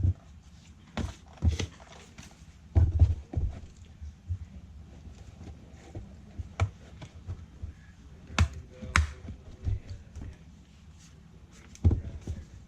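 Irregular knocks, clicks and thuds from a laptop and its parts being handled on a work surface, with the loudest knocks about three, nine and twelve seconds in.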